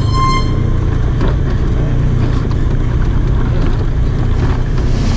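Side-by-side UTV engine running steadily with drivetrain and tyre noise as it drives over a rocky dirt wash, a loud, even low rumble heard from on board. A brief high-pitched tone sounds at the very start.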